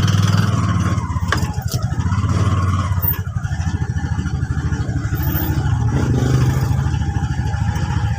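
A motor vehicle engine running steadily with a fast, even pulse, and a sharp click right at the end.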